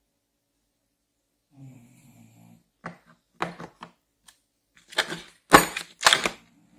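Hands handling air-tool accessories in a hard plastic carrying case: a few light clicks, then a loud clatter of metal fittings and sockets knocking against the plastic insert near the end.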